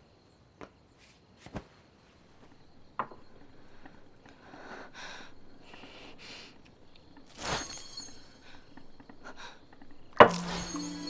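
Footsteps on a wooden floor, several short steps about half a second apart, then soft shuffling noises. Near the end a sharp loud hit, with music starting right after it.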